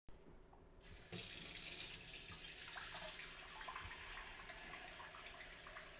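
Silence for about a second, then water from a tap starts running, louder at first and then steadier, as a dog's water is poured.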